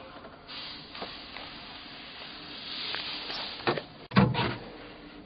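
Handling noise from a handheld camera moved around a boat's engine bay: a rustling hiss for about three seconds, then two knocks about four seconds in, the second the loudest.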